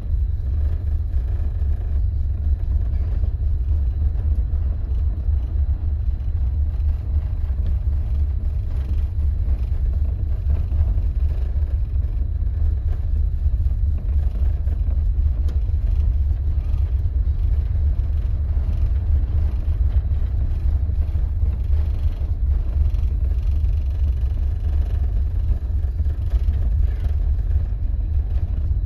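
Storm-force wind buffeting the microphone on the open deck of a ferry underway: a loud, steady low rumble that flutters unevenly, with a lighter rushing of wind and sea above it.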